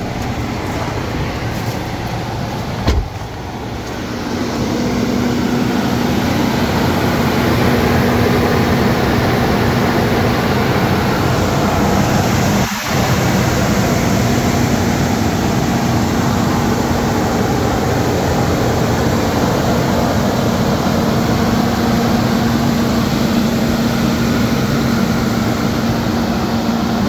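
Toyota Century's 5V-EU 4.0-litre V8 idling steadily and smoothly at its raised fast idle just after a cold start, heard at the open engine bay. There is a single sharp knock about three seconds in, and the engine is louder from about four seconds in.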